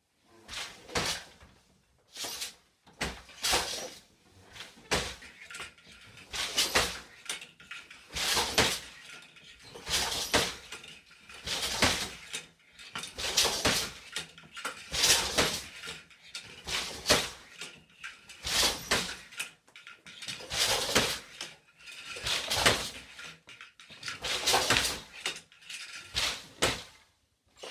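An 8-harness floor loom being woven on: a steady run of knocks and clacks, about one a second, as the treadles shift the harnesses, the shuttle is thrown and the beater packs each weft thread into place.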